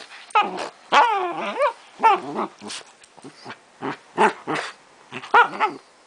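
Small terrier play-growling and yapping in a rapid string of short bursts, with one longer wavering growl about a second in.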